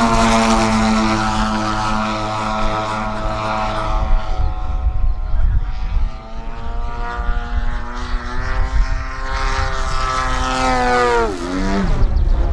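Engine and propeller of a large radio-controlled aerobatic airplane (AJ Laser 230) in flight, the pitch rising and falling as the plane manoeuvres. About eleven seconds in, the pitch drops steeply.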